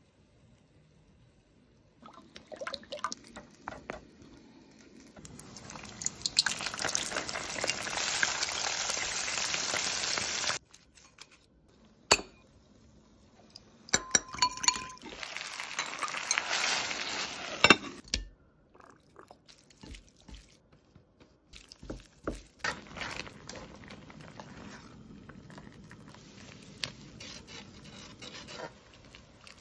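A run of kitchen sounds: oil sizzling loudly and steadily, then stopping abruptly. A metal spoon clinks and scrapes in a ceramic bowl as sauce is stirred. Near the end, food fries more quietly in a wok of oil, with light clinks of a wire strainer.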